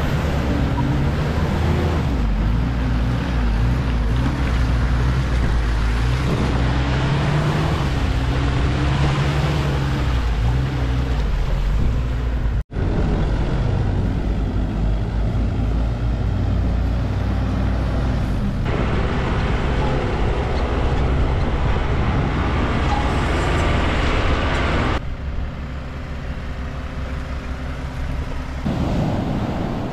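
Off-road truck's engine running under load while towing a minivan on a rope, its pitch wavering up and down. The sound breaks off sharply about halfway through and changes character a few more times toward the end.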